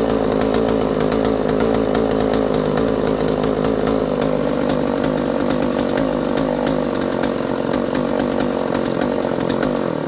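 Vintage JoBu L6 56cc two-stroke chainsaw power head, without bar and chain, running at a steady speed, then cut off suddenly at the very end.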